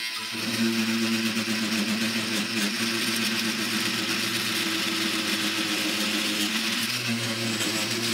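Oscillating multi-tool starting up about a quarter second in and then running steadily. Its blade is sawing around a knife's wooden handle to free the tang, giving a steady buzz with a hiss over it.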